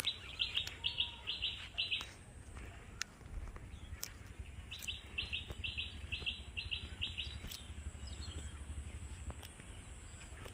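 A bird calling in two runs of short repeated chirps, about three a second, with a pause of a few seconds between the runs. A low rumble runs underneath.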